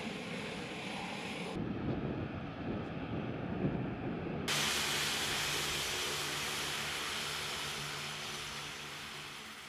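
Aircraft engine noise on a flightline: a steady hiss and rumble that changes abruptly twice. First comes a deep rumble, and from about four and a half seconds in a loud, even hiss with a low steady hum, fading near the end.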